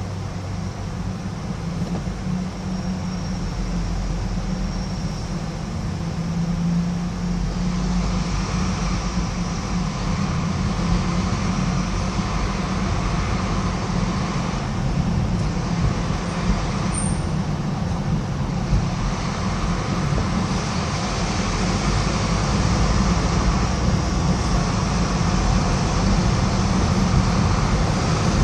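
Car driving at steady speed: a continuous road and tyre rumble with engine noise, heavy in the low end, that grows slowly louder.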